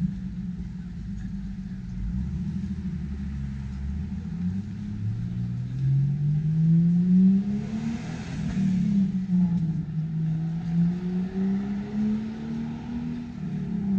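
Street traffic: a car engine accelerating, its pitch rising, dropping and rising again, with a rush of tyre noise as a car passes about eight seconds in.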